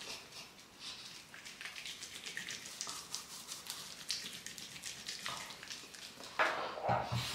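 Faint wet squishing and crackling of hands rubbing foaming face cleanser over the skin. Near the end a tap starts running into the sink.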